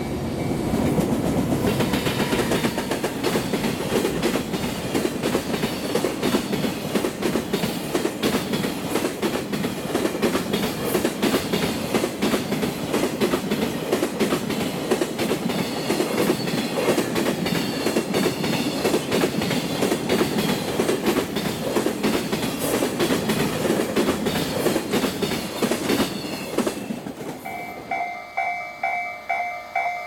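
Freight train of container flatcars rolling close past on the Tokaido freight line: a dense, rapid clatter of wheels over the rail joints. About 27 seconds in the clatter gives way to a level-crossing warning bell ringing its steady two-tone beat.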